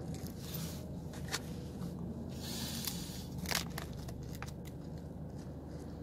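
Plastic food packaging being handled, crinkling and crackling with scattered sharp clicks. The loudest stretch comes about two and a half to three and a half seconds in.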